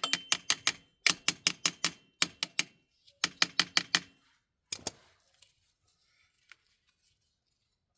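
Cordless electric driver with an 8mm socket working the small bolts of an ATV's oil filter housing: several short bursts of rapid clacking with a faint motor whine, each burst under a second long, stopping about five seconds in.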